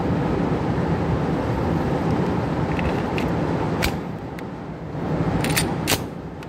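Small sharp metallic clicks from a Taurus Millennium G2 PT-111 pistol and its extended magazine being handled, a few scattered through the middle and the sharpest about six seconds in. They sit over a steady low background noise.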